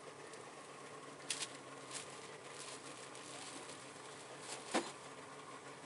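Rummaging through a boat's storage compartment: a few faint rustles and knocks, the loudest about three-quarters of the way through, over a low steady hum.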